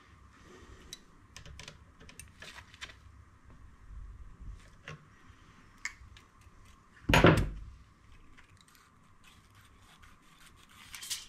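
Small metallic clicks and taps of hand tools and a feeler gauge being worked at the valve rocker arms of a four-stroke scooter engine during valve clearance adjustment, with one louder knock about seven seconds in.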